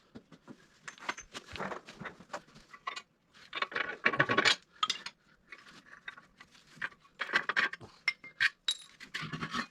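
Metal tools and parts being handled during a grader blade repair: a run of sharp clinks and knocks, with denser clattering about four seconds in and again near the eight-second mark.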